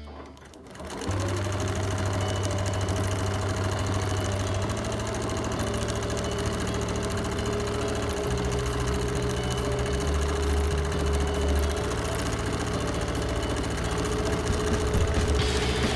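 Bernina Q20 sit-down longarm quilting machine stitching at speed: a fast, even needle rhythm over a steady motor hum. It starts up about a second in, and its speed shifts a few times as the quilter moves the fabric.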